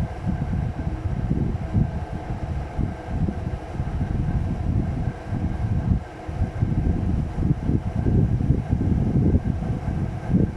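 Uneven wind rumble buffeting the microphone, with a faint steady hum above it, the kind made by a room fan blowing across the mic.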